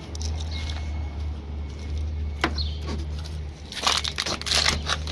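A car key scraping into a stiff boot-lid lock and being worked: a few separate clicks, then a quick run of metallic clicks and key rattling near the end, over a steady low hum.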